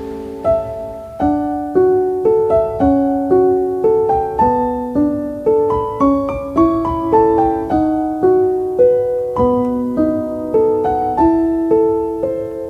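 Background music: a gentle solo piano melody with notes struck about twice a second, each ringing and fading.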